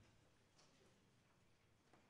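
Near silence: the faint room tone of a hall, with a couple of faint soft clicks.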